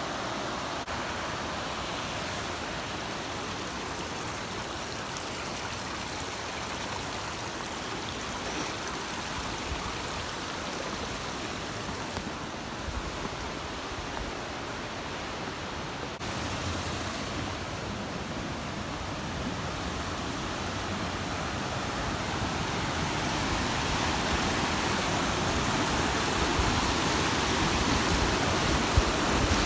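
Small waterfall on a mountain stream: steady rushing water, growing louder over the second half.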